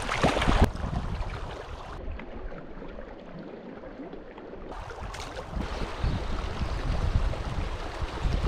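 Shallow mountain stream running over rocks, with wind buffeting the microphone; the sound changes abruptly a few times and is quieter and duller for a couple of seconds in the middle.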